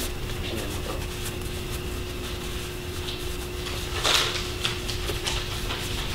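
Rustling and light handling noises of a glove being worked onto a plastic mannequin hand, with a brief louder scrape about four seconds in, over a steady low hum.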